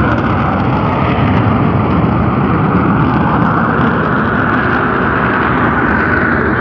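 Steady, continuous rumble of volcanic gas venting from the crater of Mount Bromo, an active volcano.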